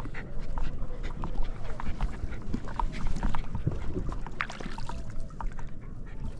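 A dog whimpering on a paddle board, short high whines again and again over a steady low rumble.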